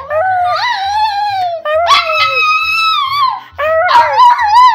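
Small dog howling: long, wavering howls that slide down in pitch, then shorter, choppier howls near the end. Background music with a steady beat plays underneath.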